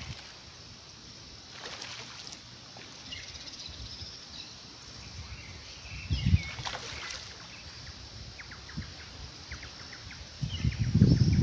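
A hooked pacu splashing at the pond surface during the fight on a bamboo rod, with one short splash about six seconds in, and birds chirping. A louder rushing noise comes in near the end.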